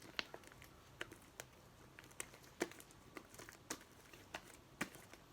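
Homemade slime being squeezed and worked by hand, giving faint, irregular little clicks and pops.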